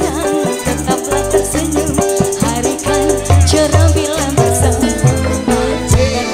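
Live dangdut band playing an instrumental passage: electric guitars, keyboard and bass over a drum kit and hand drums, with a steady rattling shaker-like percussion part.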